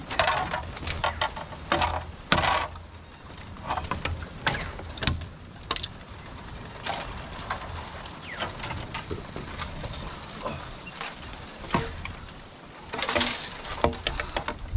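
Scattered knocks, clicks and short rustling scrapes from hand building work on a wooden post structure.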